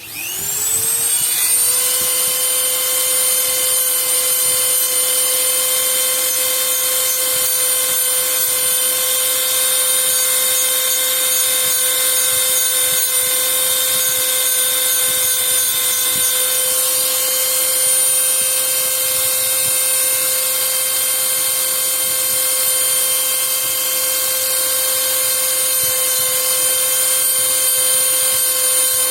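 Small electric power tool spinning up over about a second, then running at a steady high whine.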